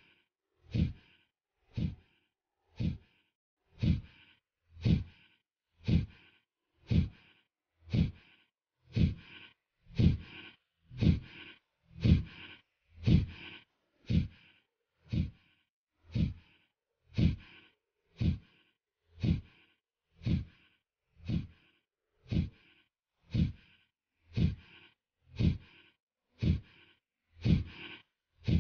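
Kapalbhati pranayama breathing: short, forceful exhalations puffed out through the nose at a steady rhythm of about one a second, with the passive in-breath between strokes barely heard.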